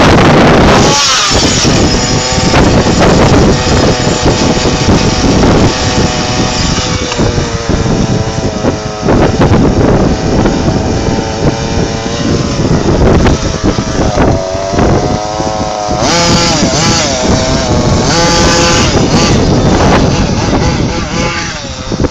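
Small engine of an RC off-road buggy revving up and down as it is driven, its pitch repeatedly rising and falling. Wind buffets the microphone in the first second.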